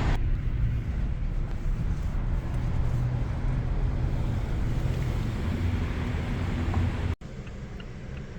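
Car driving: a steady low engine and road rumble. About seven seconds in it cuts off sharply and carries on quieter.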